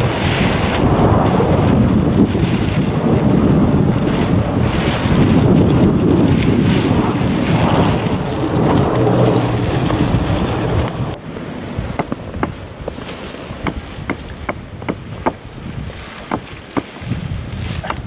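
Wind rumbling on the microphone, mixed with the rustle of a plastic tarp being draped and spread over a ridgeline. About eleven seconds in the rumble drops away, leaving a run of sharp crackles and ticks as the tarp is handled.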